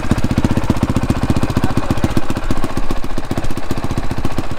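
2019 Honda CRF450R's single-cylinder four-stroke engine idling steadily through its twin exhausts, a rapid, even pulse of roughly a dozen beats a second with no revving.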